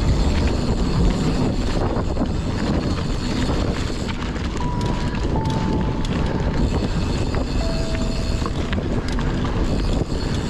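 Wind buffeting the microphone and the rumble of a mountain bike's tyres over a rough forest trail at speed. A few short, steady high tones come and go in the second half.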